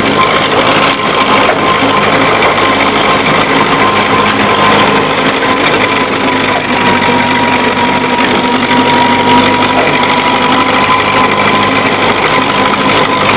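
Old farm tractor engine running steadily at raised throttle, with a steady high whine running through it; the engine is running pretty decent.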